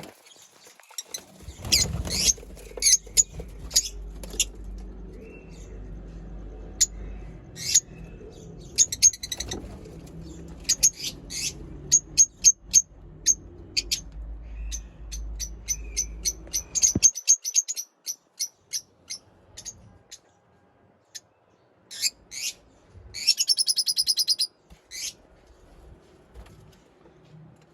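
Lovebirds chirping: many short, sharp, high calls, some in quick runs, with a burst of rapid chatter near the end. A low rumble runs beneath and cuts off suddenly about two-thirds of the way through.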